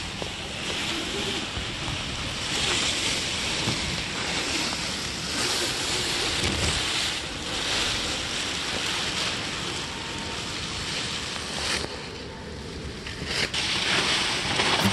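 Wind buffeting the microphone and water rushing along a sailboat's hull under spinnaker: a steady rushing noise that swells and eases.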